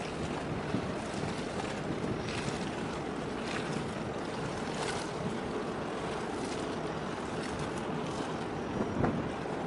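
Steady harbour ambience: wind on the microphone over water, with a faint distant ship engine hum.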